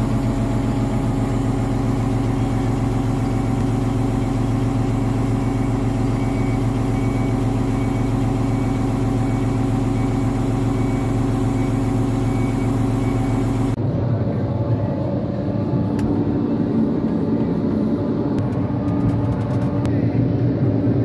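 John Deere 1270G harvester's diesel engine running steadily, heard from inside the cab. About two-thirds of the way through, the sound changes abruptly, and the engine keeps running as the machine drives along a muddy track.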